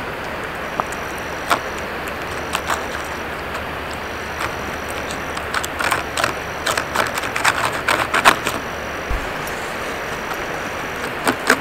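Two cats eating food from a small plastic tub: scattered small clicks of chewing and licking, thickest in the middle, over a steady outdoor hiss with a faint high tone that comes and goes.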